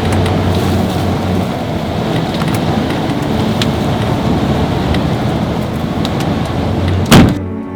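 Storm noise: a steady rush of wind-driven precipitation with scattered small ticks. A single loud, sharp bang about seven seconds in, the loudest sound.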